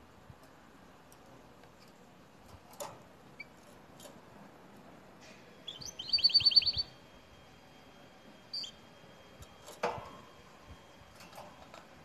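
Canary singing one quick, goldfinch-like trill of rapidly repeated high notes lasting under a second, about six seconds in. A few soft knocks come before and after it.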